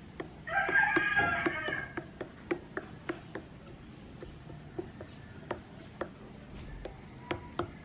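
A rooster crows once, about half a second in, the loudest sound here. Throughout, a stirrer clicks lightly against the AeroPress chamber, about two to three ticks a second, as the coffee grounds and hot water are stirred.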